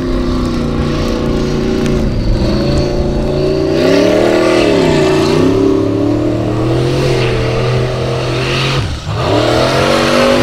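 Formula Offroad buggy's engine revving hard as it climbs a steep muddy hill, its pitch rising and falling with the throttle. About nine seconds in it drops off briefly, then revs sharply up again.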